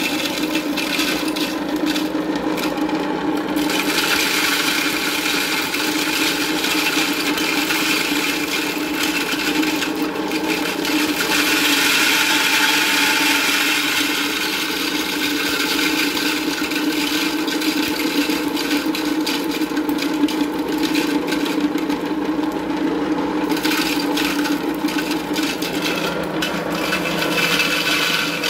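Electric dry mill grinder running under load while milling dried corn kernels: a steady motor hum with a continuous rasping grind of the grain, growing harsher for a few seconds midway.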